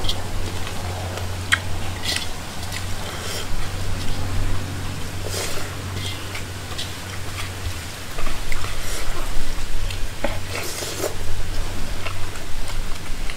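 Eating rice and curry by hand: fingers squishing and mixing rice on a plate, with chewing and mouth sounds, broken by a few short clicks and scrapes. A steady low hum runs underneath.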